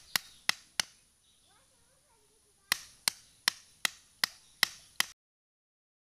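Small hammer striking a wooden stick in quick, sharp blows, about three a second: a run of three, a pause of under two seconds, then a run of about eight that cuts off suddenly.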